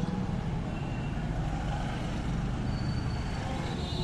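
A motor vehicle engine idling steadily, with a low, rapidly pulsing rumble, and faint brief high tones now and then.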